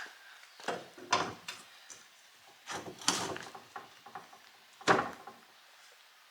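Clunks and scraping clatters as a yard-cart wheel and its hardware are handled, a few separate knocks with the sharpest about five seconds in.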